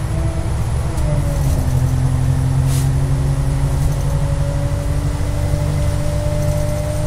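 Detroit Diesel Series 50 EGR diesel engine with Allison automatic transmission in a NABI D40LFW transit bus, running steadily with a deep rumble. A whine drops in pitch about a second in, then climbs slowly.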